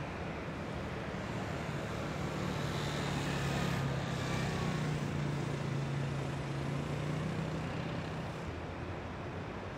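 Wind rushing over the microphone of a bicycle-mounted camera riding along a paved path, with a low engine hum that swells through the middle and fades out near the end.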